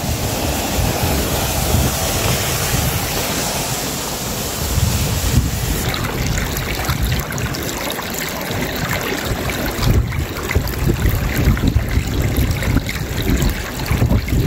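Wind buffeting the microphone outdoors on a mountainside: a loud, continuous rushing roar that surges in gusts.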